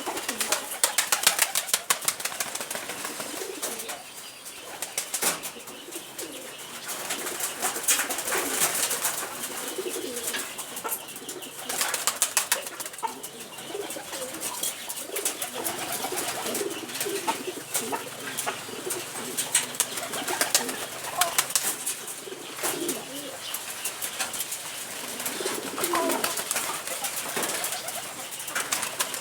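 Poultry feeding at a plastic feeder: rapid, irregular clicking taps of beaks pecking at the feed, with short, soft, low calls from the birds throughout.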